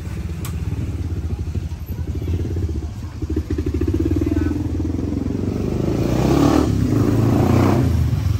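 Motorcycle engine running with a steady low putter, and passing traffic swelling louder about six seconds in.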